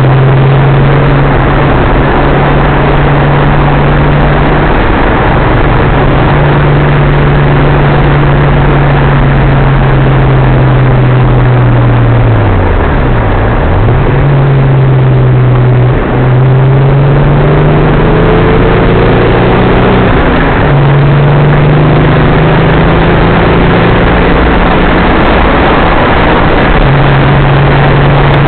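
Datsun 280ZX Turbo's turbocharged straight-six heard from inside the cabin while driving, a steady engine drone over loud road and wind noise. About halfway through the engine note drops sharply and climbs back, then after a brief break it rises and steps down again before settling into a steady drone.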